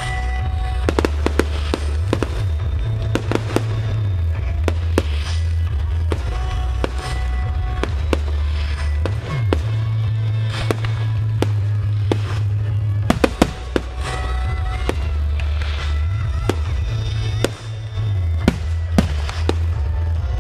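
A fireworks display: shells bursting in a string of sharp bangs scattered throughout, with a cluster of louder reports a little past halfway. Music with a heavy bass plays loudly under the bangs.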